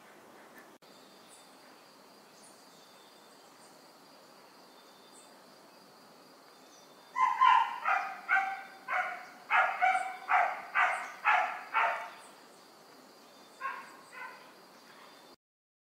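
A dog barking in a quick run of about ten short barks, roughly two a second, then twice more near the end, over a faint steady high whine.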